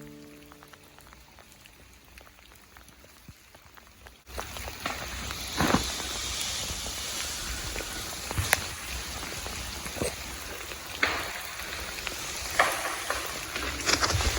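Sleet pattering on ice-coated trees and track ballast, a steady hiss that starts abruptly about four seconds in after faint ticking. Sharp cracks and snaps ring out every second or so, typical of ice-laden branches breaking under the weight of ice.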